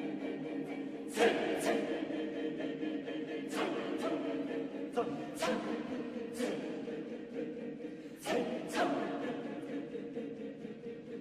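Mixed chamber choir holding sustained chords, cut every second or two by sharp, hissy accents that die away quickly, often two in quick succession.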